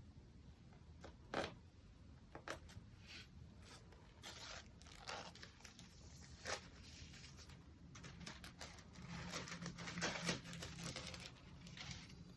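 Hands handling a MacBook Air and its wrapping: scattered light clicks and short rustling, scraping swishes, busiest and loudest about nine to eleven seconds in.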